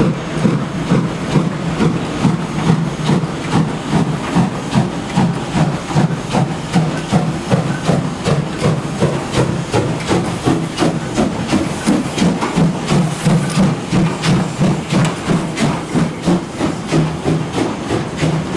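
DR class 35.10 steam locomotive 35 1097 pulling away under load with a heavy train: a steady run of loud exhaust chuffs, about two to three beats a second, with steam hissing.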